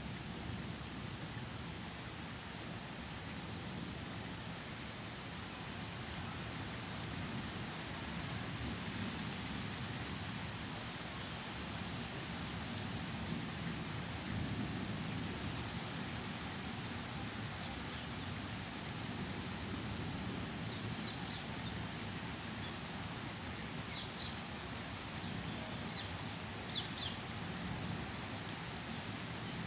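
Steady rain falling on garden foliage and the ground, an even hiss throughout. A few short, high chirps come through in the second half.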